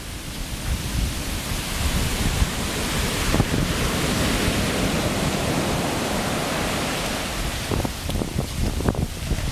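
Sea surf breaking and foaming up a sandy beach, with wind buffeting the microphone. The wash swells a couple of seconds in and eases off near the end.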